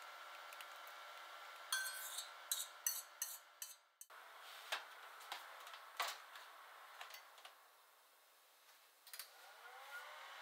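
Glass bowl and utensil clinking and scraping against the glass baking dish in a quick run of sharp clicks. Then the baking dish goes into a Hitachi oven-microwave with a few knocks, and the oven door clicks shut, followed by a few light clicks near the end.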